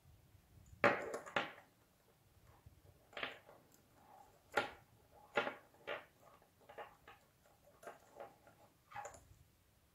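Nylon paracord rustling and scraping as hands pull the strands through a diamond knot: a string of short rustles, the loudest cluster about a second in.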